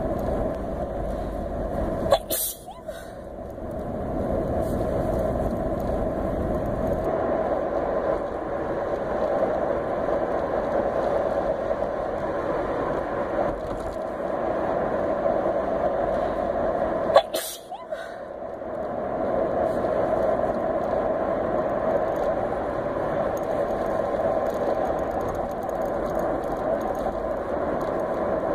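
A woman sneezing twice, two short sneezes about fifteen seconds apart, over the steady rumble of a car interior while driving.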